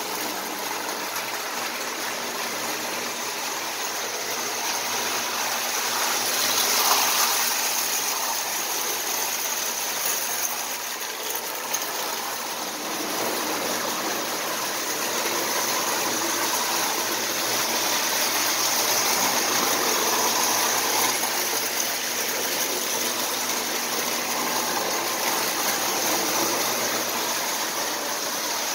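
Prewar Marx tinplate toy trains running on metal track: a steady whir of the electric motor with the rattle of wheels on the rails. It gets louder about seven seconds in and again later as a train passes close.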